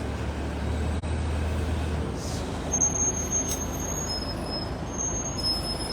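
Road vehicle noise: a low engine hum that stops about two seconds in, over a steady haze of traffic noise.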